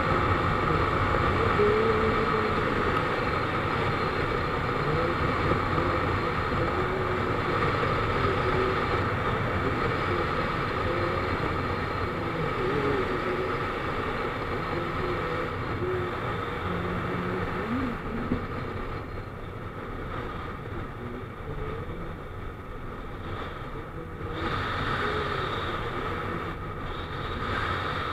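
Motorcycle cruising at highway speed, its engine running steadily under road and wind noise. The sound eases somewhat about two-thirds of the way through.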